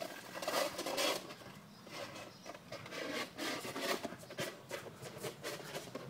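Plastic microwave-meal dish scraping and rubbing on the floor in irregular scratchy strokes as a dog plays with it.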